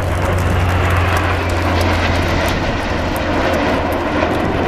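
A formation of nine BAE Hawk T1 jet trainers flying past low: a loud, steady rushing jet roar.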